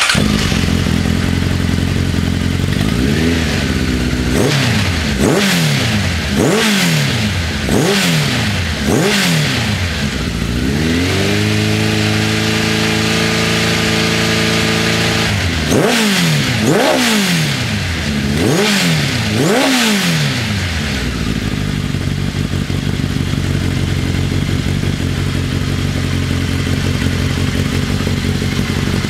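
Honda X-4's 1284 cc inline-four, fitted with 41 mm FCR carburetors and an Earl's Gear Wyvern exhaust, being revved at a standstill. It idles briefly, gives about six quick throttle blips, holds steady higher revs for a few seconds, gives about five more blips and then settles back to a steady idle.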